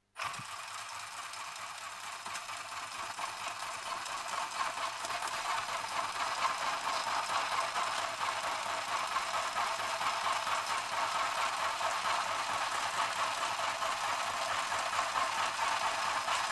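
Mini electric sewing machine running continuously, starting suddenly and getting slightly louder, its motor and needle mechanism working as the needle punches through paper. It is putting holes in the paper without really sewing it, which the user suspects is a tension setting.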